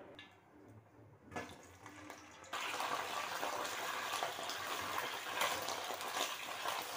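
Whole slit brinjals (small eggplants) frying in hot oil in a steel pan, being stirred with a spatula: a short knock, then a loud steady sizzle that starts suddenly a couple of seconds in.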